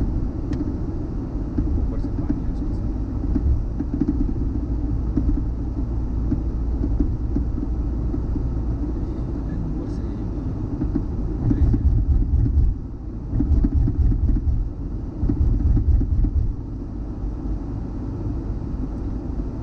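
Steady low rumble of a car driving at speed, heard from inside the cabin: tyre and engine noise. The rumble grows louder and uneven for a few seconds in the second half.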